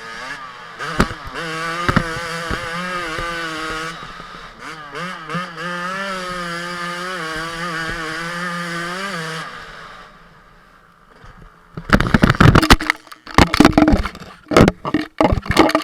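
Yamaha 250 two-stroke motorcycle engine running at high revs, its pitch wavering up and down, then dying away about nine seconds in. From about twelve seconds in comes a run of loud, irregular bangs and clatter.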